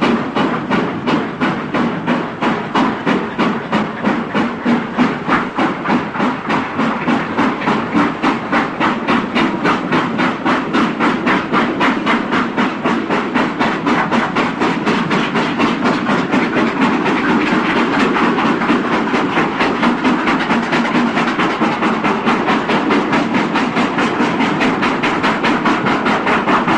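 Steam locomotive chuffing as it pulls away and gathers speed, its exhaust beats coming steadily faster.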